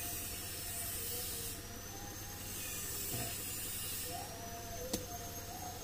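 Steady whooshing background noise, with one light click near the end.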